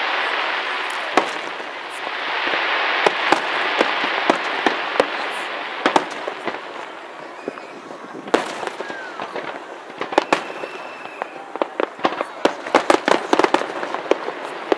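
Aerial fireworks shells bursting in a large display, with sharp bangs and crackling over a hissing wash. A dense run of rapid crackling pops comes near the end.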